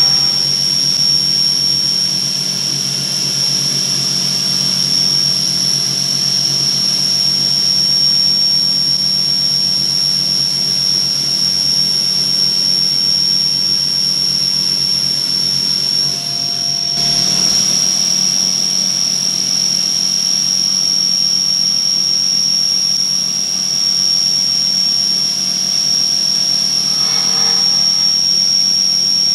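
CNC vertical mill, a Bridgeport Torq-Cut 22, machining a metal nut blank with a ball end mill under flood coolant: a steady high-pitched whine over a hiss. The level dips briefly about 16 seconds in, then the cut carries on with a slightly changed tone.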